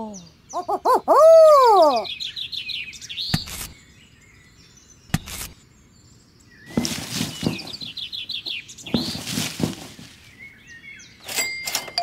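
A string of short sound effects: loud swooping tones that rise and fall, bird-like chirping, two sharp knocks and bursts of hiss.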